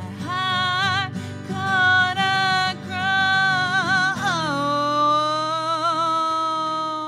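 A woman singing over acoustic guitar: a few short sung phrases, then a long note held with vibrato from about four seconds in, fading near the end.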